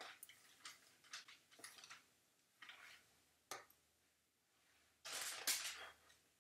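Coloured pencil scratching on drawing paper in a run of short strokes, with a sharp click about three and a half seconds in. The longest and loudest stroke comes about five seconds in.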